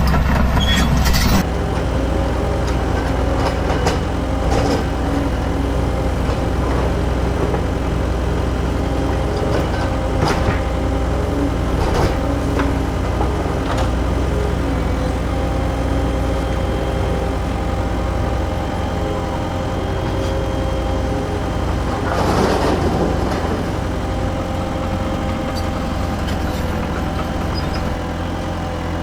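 Radio-controlled toy excavators (Huina 1580 and 1598) working: a steady, mechanical whine and hum from their small motors, with occasional clicks.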